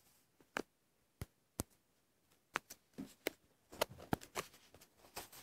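Irregular sharp clicks of fingers tapping on a smartphone's touchscreen, sparse at first, then quicker and closer together in the second half.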